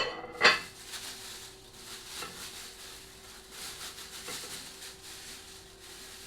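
A china plate clattering twice as it is set down on the kitchen counter, followed by a faint steady hiss.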